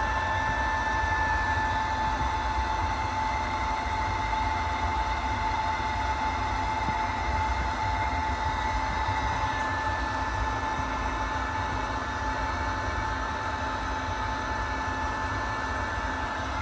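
Steady machine noise: a continuous whir with an even high-pitched whine over a low rumble, unchanging throughout.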